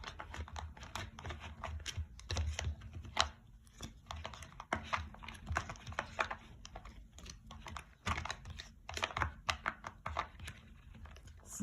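A tarot deck being handled and shuffled: a run of irregular quick card clicks and flicks.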